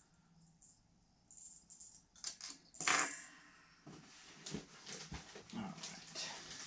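Handling noises from fishing lures and their packaging: scattered clicks and rustling, one sharper click about three seconds in, and a busier run of clicks and rustles in the second half.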